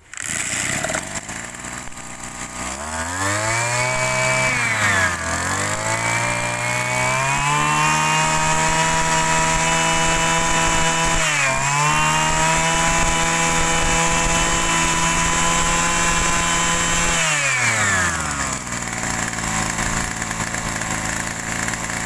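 Small brush cutter engine idling, then revved up with a stumble, held at high, steady revs with one brief dip, and let back down to idle near the end.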